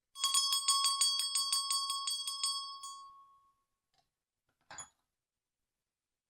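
Antique school bell shaken so its clapper strikes rapidly, about five strokes a second for nearly three seconds, with a clear ringing tone and bright overtones that die away after the shaking stops. A single short knock follows a second or so later.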